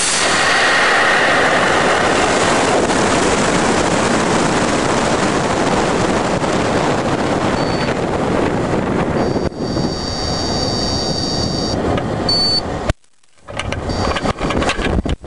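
A high power rocket's L1030 motor lighting and burning, loud from the first instant, as picked up on board the rocket. The noise eases into a long rush of air over the airframe as it coasts, because the air-start motors never light. A steady high beep sounds for about two seconds around ten seconds in; the sound drops out briefly about thirteen seconds in and comes back choppy.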